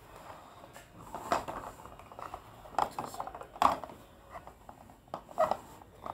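Small hard objects being handled and set down on a tabletop close to the microphone: a series of light clicks and knocks, with rustling in between.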